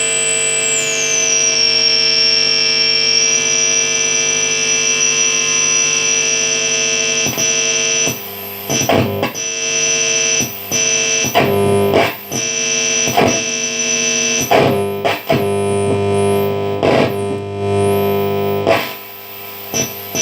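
Home-built guitar amplifier, guitar plugged in and all knobs at maximum, humming and oscillating: a steady buzzing drone under a high-pitched whistle that slides down in pitch in the first couple of seconds and then holds. From about seven seconds in, the noise repeatedly cuts out and bursts back with crackles and sweeping squeals.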